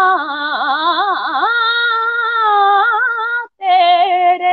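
A boy singing a naat a cappella. He holds long notes with wavering, ornamented turns, breaks off briefly about three and a half seconds in, then starts the next phrase a little higher.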